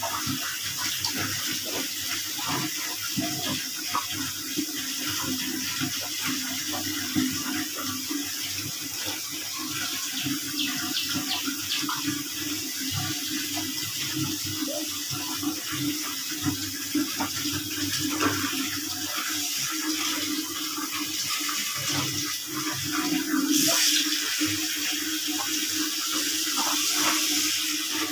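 Water running steadily, with small splashes and dribbles throughout.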